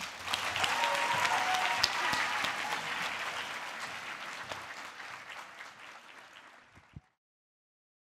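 Audience applauding, loudest at first and then slowly dying down, cut off abruptly about seven seconds in.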